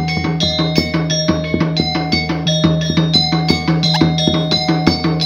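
Topeng monyet street-show accompaniment: a drum and ringing metal percussion struck in a fast, steady rhythm of about four beats a second, over a steady low hum.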